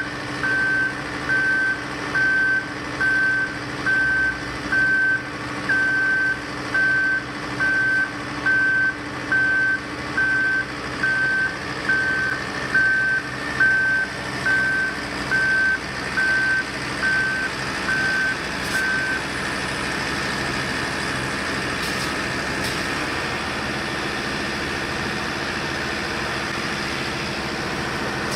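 Road-construction machine's reversing alarm beeping about once a second, one steady high tone, over the steady running of a heavy engine. The beeping stops about two-thirds of the way through, and the engine runs on.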